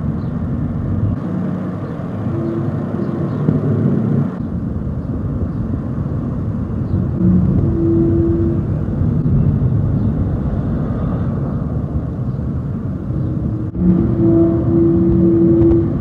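Low, continuous rumbling drone with wind buffeting the microphone, and a long horn-like tone rising out of it three times, the longest near the end: the 'strange trumpet sounds' heard from the sky, source unexplained.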